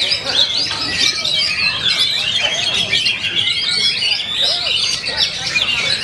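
Many caged oriental magpie-robins (kacer) singing at once in a contest: a dense, continuous overlap of quick whistles, chirps and trills, with faint crowd voices beneath.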